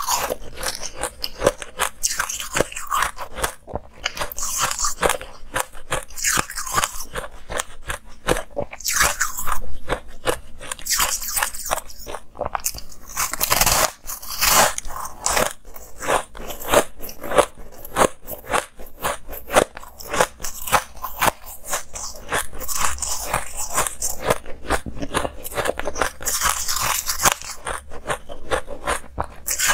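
Close-miked biting and chewing of coloured crushed-ice domes: a steady run of crisp crackling crunches, with louder bites every few seconds.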